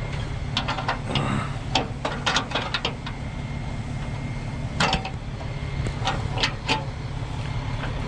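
Sharp metal clinks and clanks in quick clusters as tie-down hooks on a car carrier trailer's deck are unhooked and moved aside, over the steady low hum of an idling truck engine.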